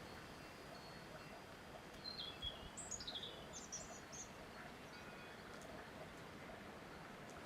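A small bird chirping a short run of quick, high, falling notes about two seconds in, over a faint steady outdoor hiss.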